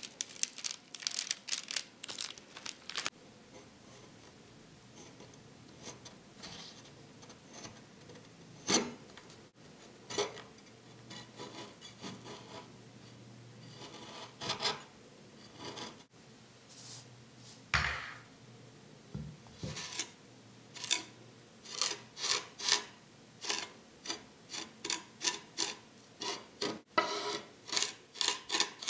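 A kitchen knife working on a bamboo cutting board: scraping along a split vanilla pod, then pressing and dragging vanilla seeds through sugar with the flat of the blade in gritty rasping strokes, about two a second, through the last third. At the very start, soft crackling of stiff butter-cookie dough being squeezed through a piping bag's metal star tip.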